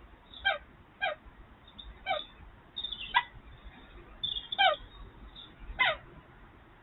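Short, high-pitched animal calls repeated about once a second, each a brief clear note.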